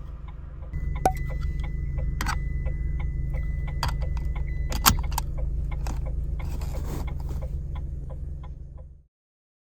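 Car engine idling, heard from inside the cabin, under the clicks and rattles of a seat belt buckle and extender being handled, with sharp latching clicks about a second in and again near five seconds. The sound cuts off abruptly near the end.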